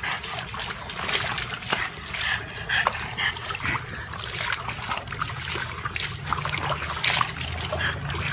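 Water splashing and trickling in an irregular stream of small spatters.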